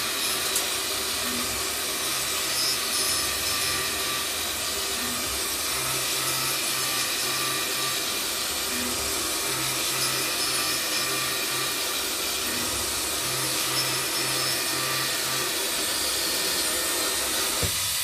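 Automatic PCB V-cut depaneling machine running, its motor-driven circular blade spinning and cutting along a panel of circuit boards with a steady hiss, joined by a low hum that pulses on and off in repeating groups.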